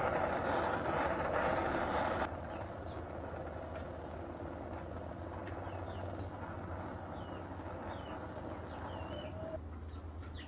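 Handheld gas torch flame hissing steadily as it heats a seized brake caliper to free the stuck piston. The hiss is louder for the first two seconds, then settles lower, and cuts off shortly before the end.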